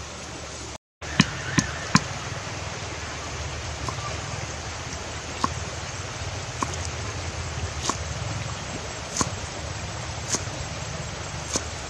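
Cleaver chopping green onions on a wooden cutting board: after a brief dropout to silence, three sharp knocks in quick succession, then single knocks every second or so over a steady hiss.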